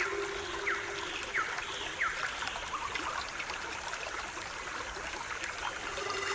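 Stream water trickling and splashing steadily, with three short falling chirps about a second, a second and a half and two seconds in.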